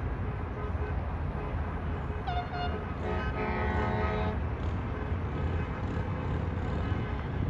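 Two horn blasts from the parade: a short one about two seconds in, then a longer, lower one just after three seconds that lasts about a second and a half. Both sound over a steady low rumble.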